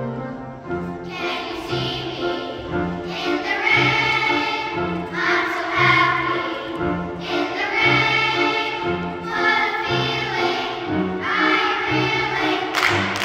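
Children's choir singing, with a steady low beat in the accompaniment under the voices.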